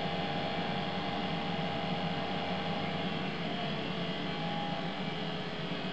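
Vintage IEC clinical centrifuge's brush motor running at a steady speed, a constant mechanical hum with several fixed tones. The phone tuner reads the hum at about 45 Hz, the rotor's turning rate.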